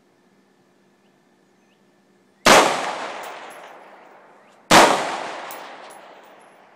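Two AR-15 rifle shots about two seconds apart, each sharp crack followed by a long echoing tail that dies away slowly.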